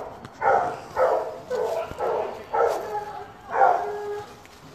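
Hunting hounds baying, a run of short, repeated calls coming about every half-second to second.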